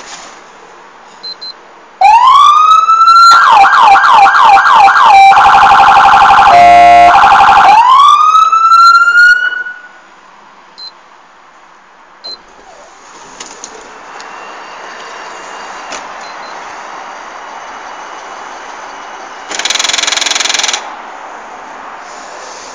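Electronic police siren of a 1991 Chevrolet Caprice 9C1, loud from inside the car. It starts about two seconds in with a rising wail, switches to a fast yelp of repeated quick up-sweeps, then to a rapid warbling tone, and ends with one more rising wail that stops about ten seconds in. Near the end comes a horn blast lasting about a second.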